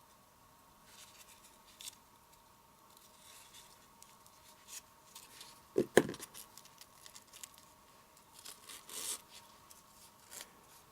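Ribbon being pulled through a small punched hole in a cardstock band, with faint rustling and scraping of ribbon and card. A single sharp knock about six seconds in.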